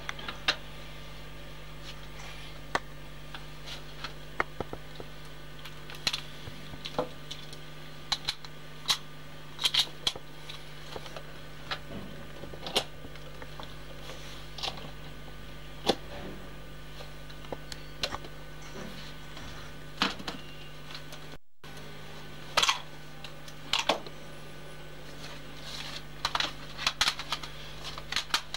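A camcorder's steady low electrical hum, with irregular sharp clicks and ticks scattered throughout, a few louder ones near the end, typical of fingers shifting on the body of a handheld camcorder.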